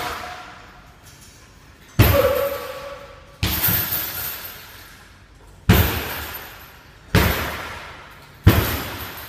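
Five hard kicks and punches landing on an Everlast heavy punching bag, each a sharp smack followed by about a second of ringing decay, at uneven intervals of one to two seconds.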